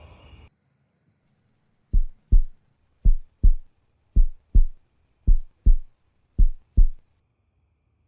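Heartbeat sound effect: five low double thumps, lub-dub, about one beat a second, then it stops.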